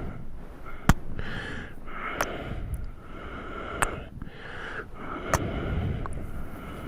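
Close-miked ASMR kissing mouth sounds: breathy exhales broken by four sharp lip smacks, about one every second and a half.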